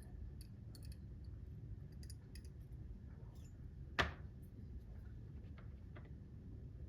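Small metal hand tools clicking and tapping faintly against clock parts, with one sharper click about four seconds in, over a low steady hum.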